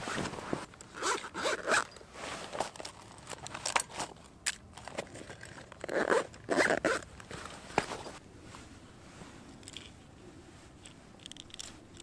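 Gear being handled on ice: short rasping zipper pulls and rustling, in clusters that are loudest about a second in and again around six seconds, then only quieter fiddling after about eight seconds.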